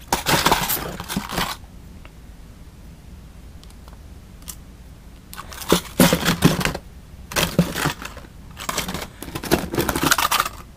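Plastic blister packs and bagged tackle rustling and crinkling as they are handled in a cardboard box: one burst at the start, a few quiet seconds, then several more short bursts in the second half.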